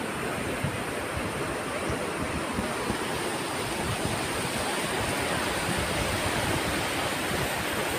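Steady rushing noise of floodwater flowing, even and unbroken.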